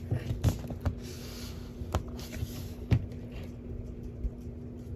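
Hands handling and standing a plastic S.H. Figuarts action figure on a display base, making a few light clicks and taps, the sharpest about two and three seconds in.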